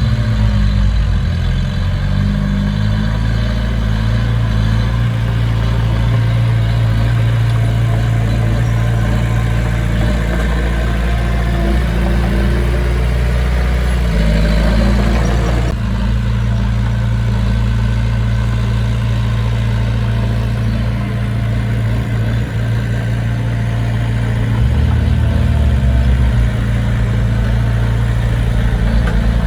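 Heavy diesel engine of construction machinery running steadily at low revs, with a sudden break about halfway through where the sound cuts to another take.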